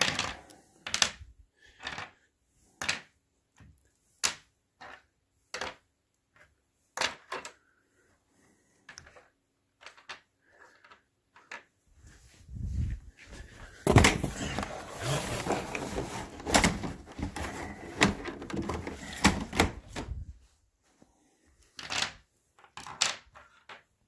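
White plastic pipe hanger brackets for central vacuum tubing set down one at a time on a hard stone countertop, with sharp clicks about a second apart. From about twelve seconds in to about twenty there is a denser stretch of clattering and rustling as the parts are handled, before single clicks return near the end.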